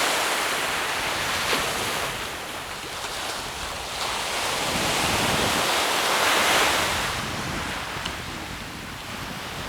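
Ocean waves breaking and washing up a sandy beach, the surf hiss swelling and easing twice, loudest about two-thirds of the way through, with wind buffeting the microphone.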